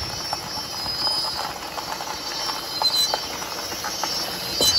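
A Ram ProMaster camper van in motion: a steady low rumble with scattered clicks and short high squeals about three seconds in and again near the end.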